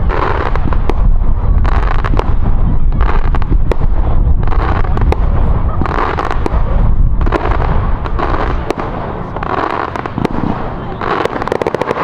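Fireworks display: repeated bangs and bursts of crackling shells going off one after another, with a quick run of rapid crackles near the end.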